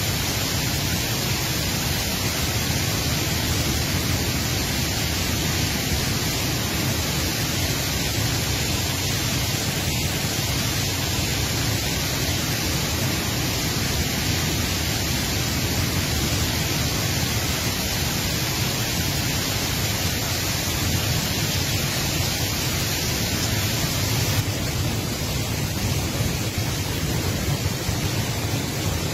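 Rain falling steadily, a dense even hiss with no distinct drops, turning slightly duller in the treble near the end.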